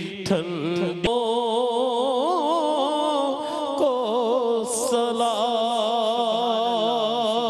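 An elderly man singing a naat, an Urdu devotional poem in praise of the Prophet, into a handheld microphone, drawing the words out in long notes that waver slowly up and down over a steady drone.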